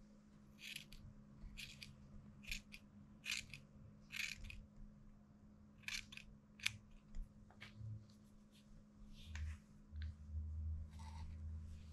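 Scissors snipping through a Shih Tzu's long fringe hair: about ten short, crisp cuts, roughly one a second. Near the end the snipping stops and a soft low rumble takes over.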